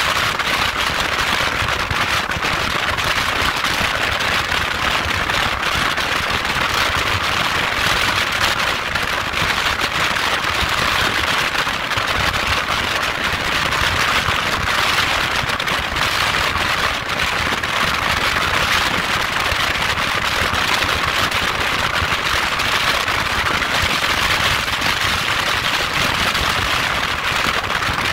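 Steady wind rush and buffeting on the microphone of a motorcycle cruising at highway speed: a loud, even hiss with a dense crackle running through it.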